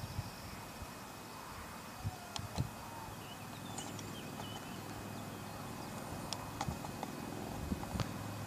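Quiet outdoor background with a few scattered sharp knocks, about two seconds in and again later, and faint high chirps near the middle.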